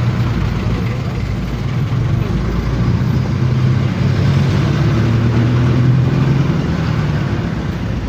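Motor vehicle engine running steadily, a low hum over a broad wash of road noise.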